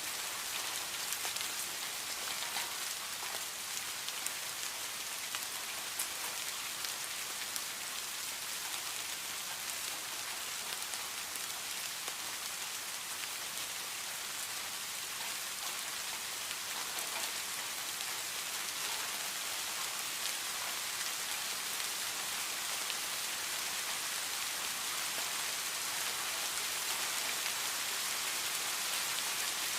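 Heavy rain falling steadily: a dense, even hiss with a fine patter of individual drops landing.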